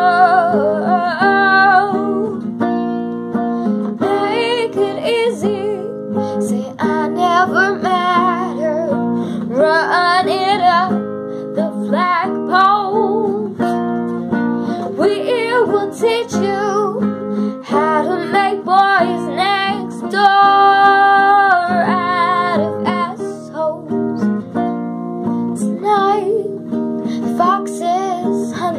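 A young woman singing a pop-rock song to her own strummed acoustic guitar.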